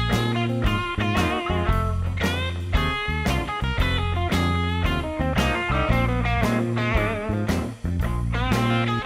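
Background music: an electric guitar playing bluesy rock lines with bent notes over bass and a steady drum beat.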